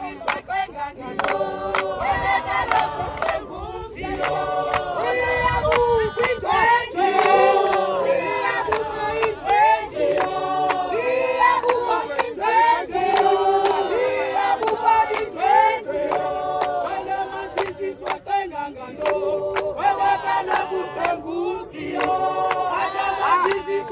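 A crowd of men and women singing a Xhosa celebration song together as they walk, with sharp claps running through it.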